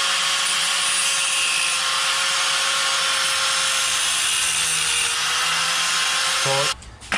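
Angle grinder running steadily with a constant motor whine as it cuts into metal beside a seized bolt, then stopping abruptly near the end.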